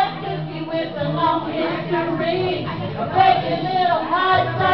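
Two women singing a rock song together through karaoke microphones over a backing track, the voices amplified through the bar's speakers.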